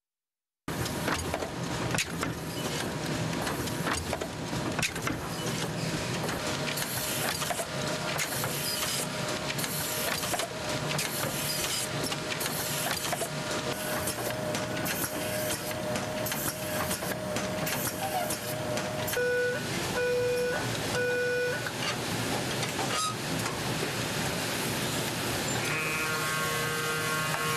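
Banknote processing machinery running with a steady mechanical clatter and rapid clicks. Three short beeps sound about two-thirds of the way through, and an electric hum comes in near the end.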